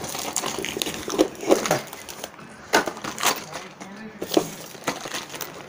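Plastic lure packaging being handled, with irregular crackling and sharp clicks.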